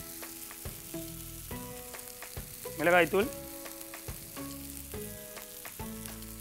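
Onion-tomato masala sizzling as it fries on a hot stone griddle, with spice powders being sprinkled in.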